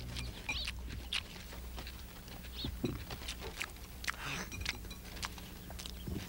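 Cutlery clicking and scraping on plates and people chewing during a meal, a scatter of small clicks over a steady low hum.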